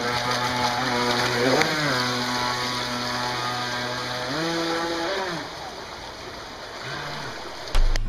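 Radio-controlled model boat's motor running over rushing water, its drone rising and falling in pitch as the throttle is worked, twice. A sudden sharp thump comes near the end.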